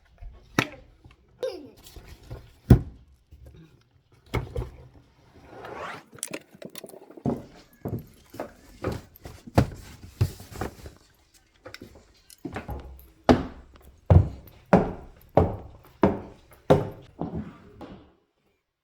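Knocks, clicks and clatter of hand tools at work on a broken camera stand, with a short scraping stretch about six seconds in and a run of seven or so evenly spaced knocks near the end.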